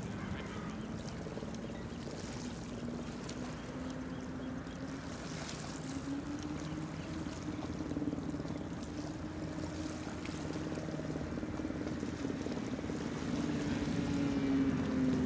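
Low, steady engine drone from a ship under way, its pitch slowly wavering, over wind and water noise; it grows louder toward the end.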